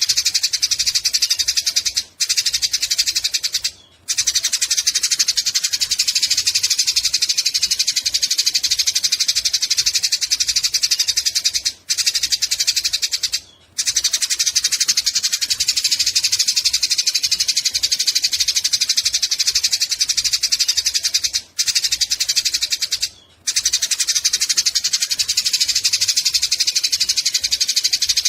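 Eurasian tree sparrows chattering in a fight: a dense, rapid, high-pitched chirping that runs without letup, broken by a few short pauses.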